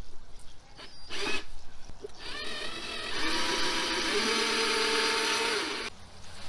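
Power drill running: a short burst about a second in, then a longer run that steps up in speed twice and stops abruptly.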